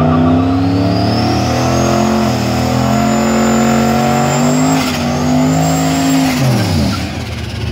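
Turbocharged LS V8 of a Chevrolet Silverado held at high revs in a burnout, rear tyres spinning. The Garrett GT4788 turbo's whine climbs to a high pitch over the first couple of seconds and holds there. Near the end the engine and the whine fall away as the revs come down.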